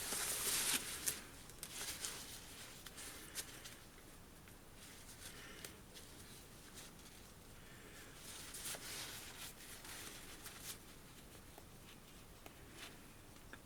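Rustling and scratching of backpack fabric being handled while a seam is unpicked with a seam ripper, with scattered small clicks and snaps. The scratching is busiest in the first second or so and again past the middle.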